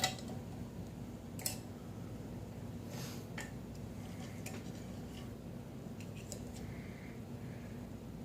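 Butter knife prying and scraping at the metal screen in the piston cylinder of a vintage lever espresso machine, making a few scattered faint clicks and scrapes over a steady low hum.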